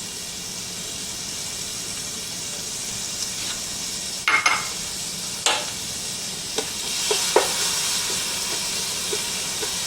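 Carrots and scallion whites sizzling in hot sesame oil in a skillet, with a steady hiss. A utensil knocks and scrapes against the pan a few times in the second half as the vegetables are stirred.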